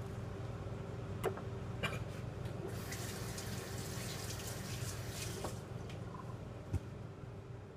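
Kitchen tap running into a stainless sink for about three seconds. Before it come two sharp clicks as a knife is set down on a plastic cutting board, and near the end a low thud, all over a steady low hum.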